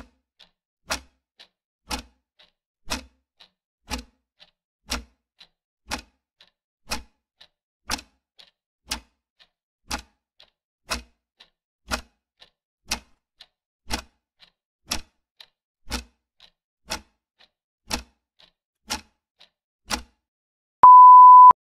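Clock-ticking sound effect for a quiz countdown timer: a loud tick every second with a faint tick halfway between. Near the end a steady electronic beep sounds as the timer runs out.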